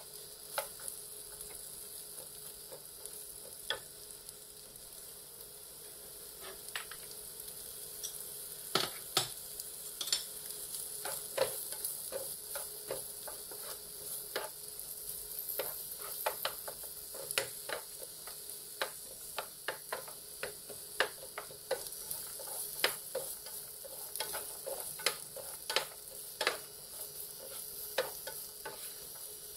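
Diced pumpkin and egg sizzling in a frying pan, with a steady high hiss, while a wooden spatula stirs them, knocking and scraping against the pan many times.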